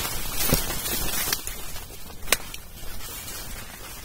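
Dry corn stalks and leaves rustling and crackling as a person pushes through them on foot, with one sharp crackle a little past two seconds in.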